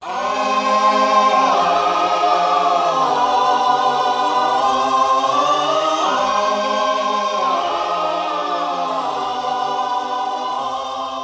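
Hydraulic power steering pump groaning with a steady, many-toned whine whose pitch shifts up and down every few seconds as the steering is turned to full lock. The groan at the end of the turn is the fault being shown.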